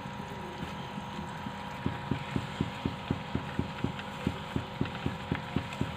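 A spoon or spatula stirring a thick rice-flour dough in a pan of boiling water, thudding against the pan in an even rhythm of about four strokes a second from about two seconds in, over a steady hum.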